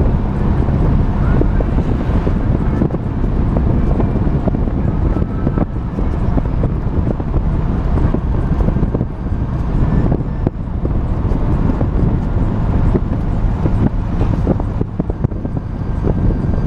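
Motor trike riding at road speed: its engine running steadily under heavy wind noise on the microphone.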